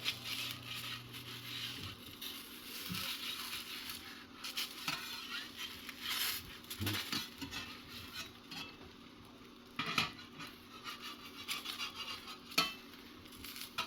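Eggs sizzling in a Lodge 8SK cast iron skillet, with a spatula scraping and knocking against the pan a few times.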